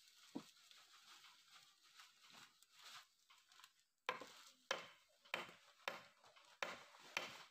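Claw hammer striking a wooden plank, about six sharp blows at an even pace of roughly one and a half per second, starting about four seconds in. Before that there are only faint scattered knocks of the wood being handled.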